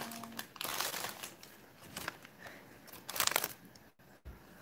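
Paper bag being handled, crinkling and rustling in short bursts, loudest about three seconds in.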